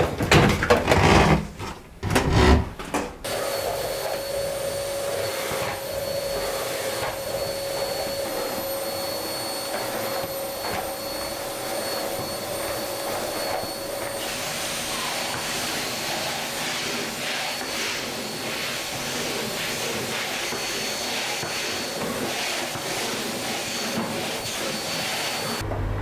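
Household vacuum cleaner running steadily with a high whine, after a few loud knocks and clatters in the first three seconds; it cuts off near the end.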